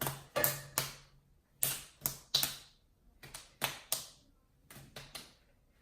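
A series of about a dozen sharp, irregular taps and clicks, some in quick pairs, with short pauses between them.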